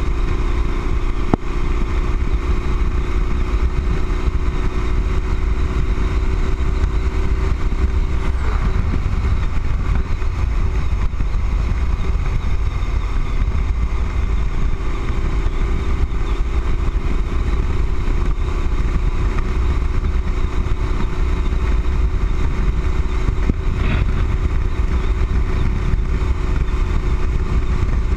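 Motorcycle cruising at steady highway speed: a steady engine drone under heavy low wind rumble on the microphone.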